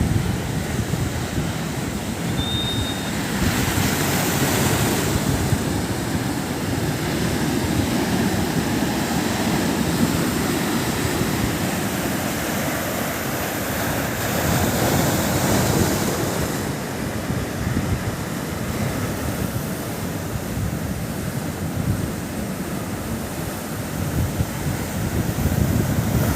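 Sea surf washing onto a beach: a continuous rush of breaking waves that swells louder about four seconds in and again midway through. Wind buffets the microphone throughout.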